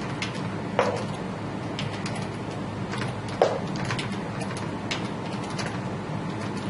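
A Siberian husky puppy gnawing a braided chew stick: irregular sharp clicks and crunches of teeth on the chew, with two louder ones about a second in and about halfway through.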